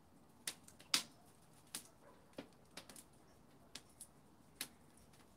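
Faint crackling of a wood and charcoal fire in a grill's fire bowl: sharp pops at irregular intervals, about nine in five seconds.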